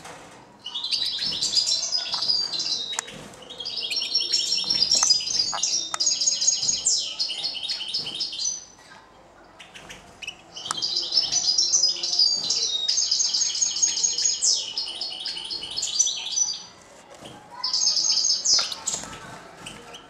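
European goldfinch singing: a fast, twittering song in several long phrases separated by short pauses, the last phrase shorter, near the end.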